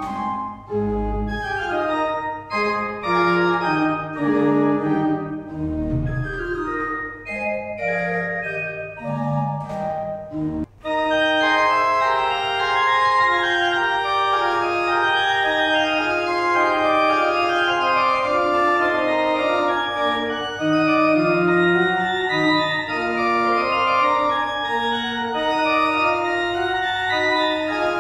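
Church pipe organ playing. The first passage is lighter, with deep pedal notes and short breaks between phrases; after a brief break about eleven seconds in, the organ carries on with a fuller, louder sound of many notes held together.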